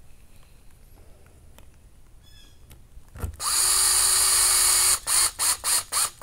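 Cordless drill/driver driving a 3x10 mm screw into the plastic chassis of an RC crawler kit: a steady whine for about a second and a half, starting about three seconds in, then several short trigger bursts as the screw is snugged down.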